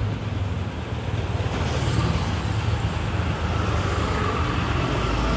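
Motor scooter engine running and drawing closer along a narrow street, over a steady hum of traffic; it grows a little louder about a second and a half in.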